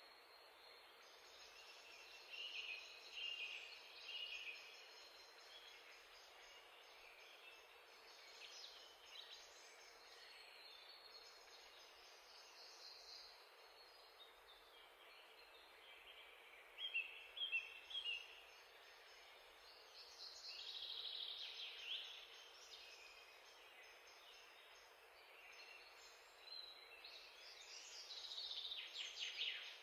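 Near silence: a faint steady hiss with a few soft, short chirps now and then.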